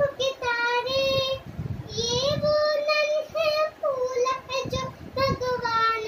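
A young girl singing solo without accompaniment, in a high voice, in short phrases of held and gliding notes with brief pauses for breath.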